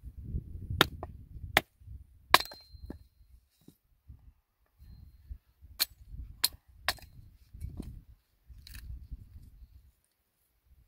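Hatchet splitting a stick into kindling on a wooden chopping block: about seven sharp cracks at uneven intervals as the blade bites into the wood. One strike about two seconds in leaves a brief ringing tone.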